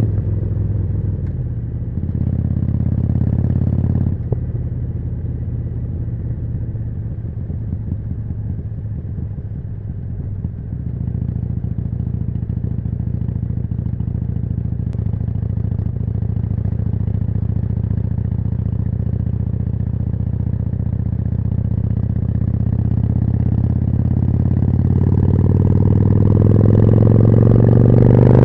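Harley-Davidson Forty-Eight's air-cooled V-twin through a Jekill & Hyde exhaust. The engine note drops in the first few seconds as the bike slows, holds low and steady for a long stretch, then the revs climb near the end as it accelerates.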